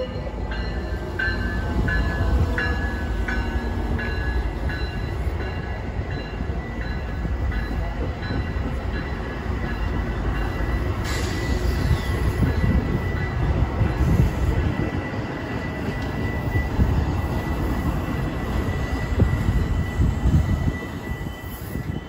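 Metra diesel commuter train passing at speed: a steady low rumble of locomotive and bilevel passenger cars going by, with a run of regular clicks in the first several seconds. From about halfway through, a steady high wheel squeal sounds over the rumble.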